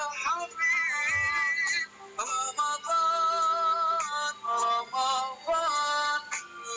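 Background music with a processed, synthetic-sounding sung melody.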